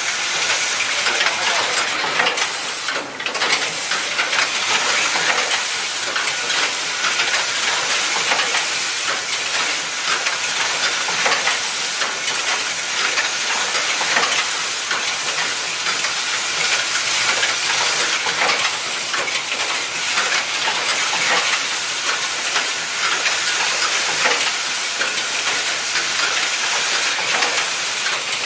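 Automatic junction-box assembly machine running steadily: vibratory bowl feeders rattling small metal parts, with a hiss of air and a dense patter of small clicks throughout.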